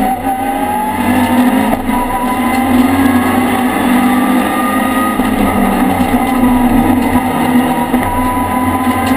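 Race car engine heard from inside the cabin under hard acceleration, its pitch climbing in long pulls and dropping back at each gear change.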